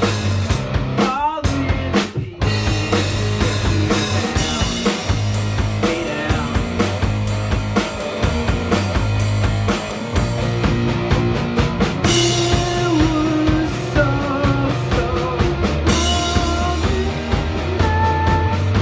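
Instrumental break of a rock song: drum kit keeping a steady beat under a bass line and guitar playing held melodic notes.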